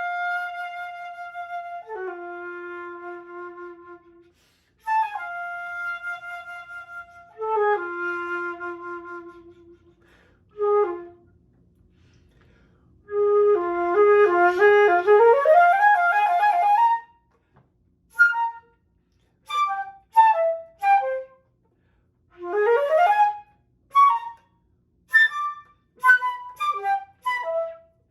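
Unaccompanied solo flute playing long held notes that step down in pitch, then after a pause a fast rising run with rapid alternating notes, then short detached notes and quick upward flourishes separated by brief silences.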